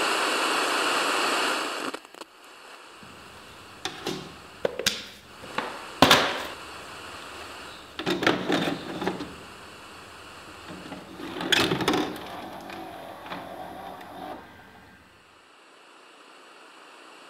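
Loud TV static hiss that cuts off after about two seconds, then a series of plastic clicks and clunks as a VHS cassette is pushed into a VCR and taken in by its loading mechanism, the loudest knocks about six, eight and twelve seconds in. Faint hiss follows.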